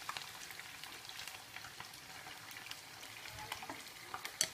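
Frogs deep-frying in hot oil in a pan over high heat: a steady sizzle full of small crackles, with a sharper pop or two near the end.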